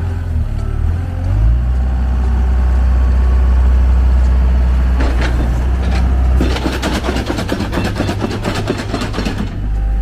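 Komatsu WA80 wheel loader's diesel engine running with a deep, steady drone that swells about a second and a half in as it works. In the last few seconds, as the bucket is raised, the drone eases and a dense rattling clatter comes in over it.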